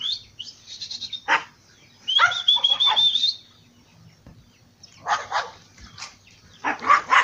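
Farm dogs barking in short bursts as they drive calves along a corral. A high, drawn-out call comes about two seconds in.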